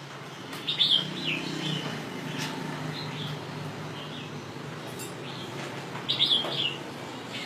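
Red-whiskered bulbul singing in short, bright, warbled phrases, with the loudest phrases about a second in and again near the end. A low hum runs under the first half.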